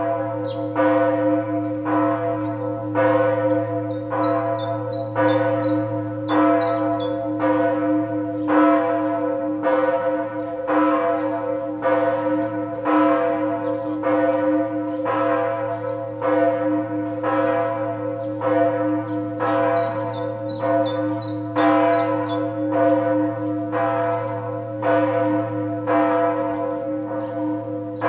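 The Lullusglocke, a bronze church bell cast in 1038, swinging and ringing alone in its tower. It strikes steadily about once a second, and each stroke rings on over a deep sustained hum.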